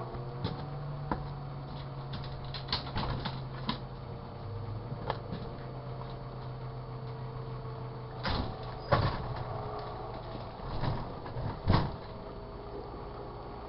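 Sharp Carousel microwave oven running with a steady hum, a lemon and a lime inside. Sharp clicks and knocks come now and then over the hum, the loudest few in the second half.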